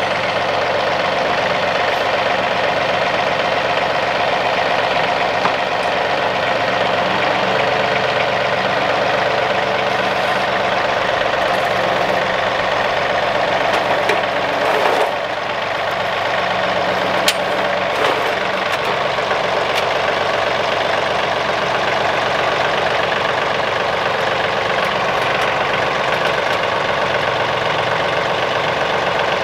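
John Deere 2038R compact tractor's three-cylinder diesel engine running steadily while the front loader lifts a heavy tote of firewood on pallet forks. The sound dips briefly about halfway through, and a sharp click follows a couple of seconds later.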